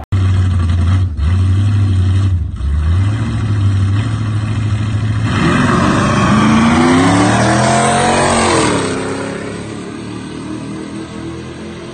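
Two drag-racing trucks, one a Ford SVT Lightning with a supercharged 5.4-litre V8, give a loud, deep steady rumble at the start line, dipping twice. About five seconds in they launch: the engines rise in pitch through the gears with shifts between, then fade as the trucks pull away.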